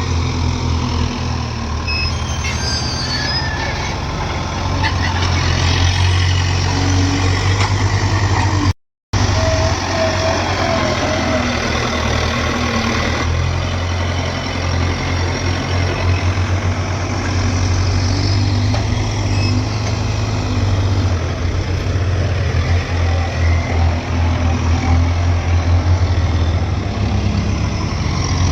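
Diesel engine of a JCB 3DX backhoe loader running under load while it digs and loads mud, its steady low throb swelling and easing with the work. The sound cuts out for a moment about nine seconds in.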